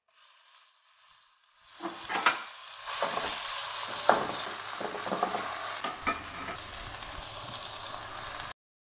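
Minced chicken breast landing in hot fat with fried garlic and sizzling from about two seconds in, with a metal spatula scraping and knocking against the pan as it is stirred. The sizzle cuts off suddenly near the end.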